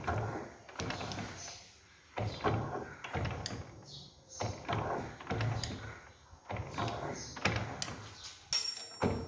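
Irregular knocking and clattering of metal parts being worked by hand, a cluster of knocks about every second, with one sharp click near the end.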